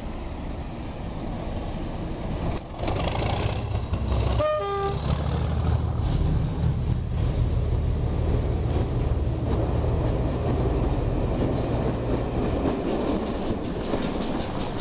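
Class 37 diesel locomotive passing close below at the head of a passenger train, its engine rumbling steadily, with a brief horn toot about four and a half seconds in. The coaches then roll past with wheel clatter and a thin high whine, and a pannier tank steam locomotive pushes at the rear near the end.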